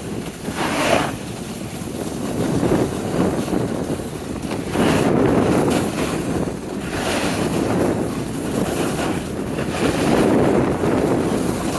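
Wind buffeting the microphone in gusts, a rough rushing noise that swells and eases every second or two.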